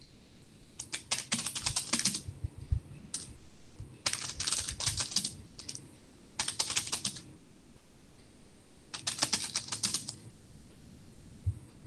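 Typing on a computer keyboard: four runs of rapid keystrokes, each about a second long, with short pauses between.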